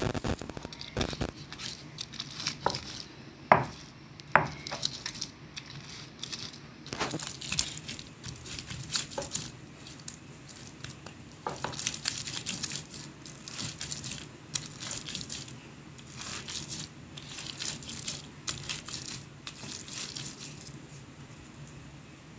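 Stone roller of a hand grinding stone rolled and pressed over a wet paste of ground chilli and fresh tomato on the stone slab: irregular wet crushing and scraping strokes, with a couple of sharp knocks of stone on stone about three and a half and four seconds in.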